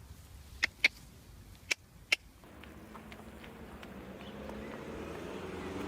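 Four sharp clicks in the first two seconds. Then a motor's steady hum fades in and slowly grows louder.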